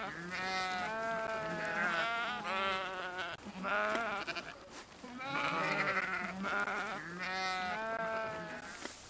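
Sheep bleating: about five long, quavering calls, some overlapping, with short gaps between them.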